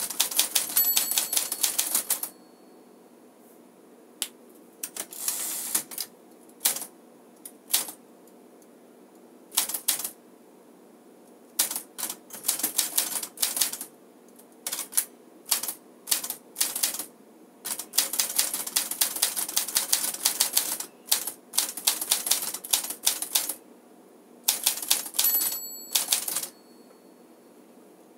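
1956 Smith-Corona Silent Super manual typewriter being typed on: quick runs of key strikes broken by pauses of a second or two, with typing the owner finds exceptionally quiet for a typewriter. A short bell-like ring, the margin bell, sounds about a second in and again near the end.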